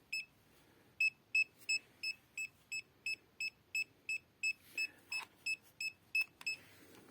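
Handheld EMF meter (R&D RD630) giving its alarm: short, high beeps repeating about three times a second, stopping shortly before the end. The meter is set off by the field of a USB AC/DC adapter whose emissions exceed its threshold.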